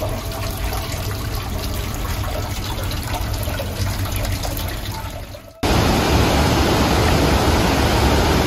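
Steady running water, an even rushing with no distinct events. About five and a half seconds in it cuts abruptly to a louder, even rush.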